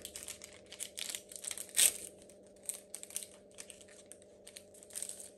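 Crinkling and tearing of a Pokémon TCG booster pack's foil wrapper as cards are handled: a run of short, irregular scratchy rustles, the loudest about two seconds in, thinning out near the end.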